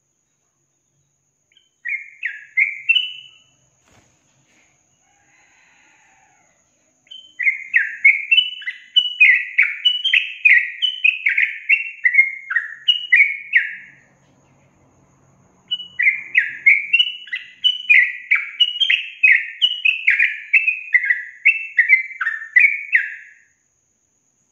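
Yellow-vented bulbul (trucukan) singing: fast runs of short, bubbling whistled notes, each sweeping quickly up or down. A brief phrase about two seconds in is followed by two long runs of about seven seconds each with a short pause between.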